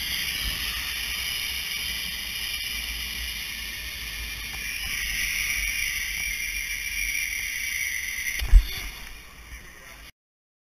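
Steady rushing hiss of water and wind buffeting on a moving GoPro's microphone, swelling a few seconds in, then one loud thump near the end before the sound cuts off.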